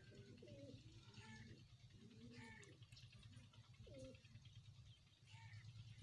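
Domestic pigeons cooing: several faint, low, warbling coos that rise and fall, over a steady low hum.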